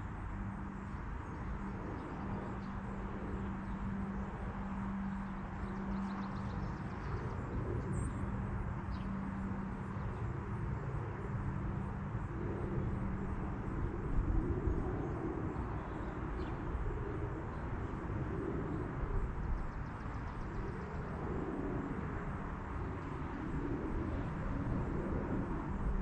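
Steady outdoor background rumble and hiss with a low hum running through it, and a few faint knocks.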